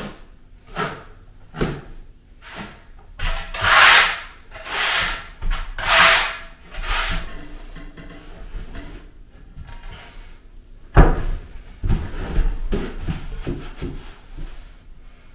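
Steel notched trowel scraping and combing thinset mortar: a run of short strokes, then three louder scrapes of about a second each. Near the end comes a sharp thump and lighter knocks as a long plank tile is set down and pressed into the mortar.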